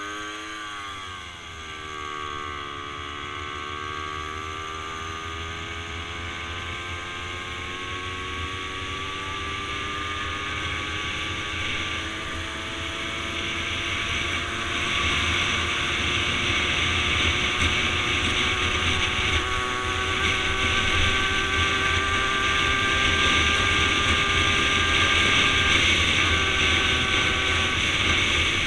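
Babetta 210 moped's 50 cc two-stroke engine running under way. Its note dips briefly near the start, then climbs slowly and steadily as the moped gathers speed, and eases a little near the end. A rushing noise of wind and road grows with it.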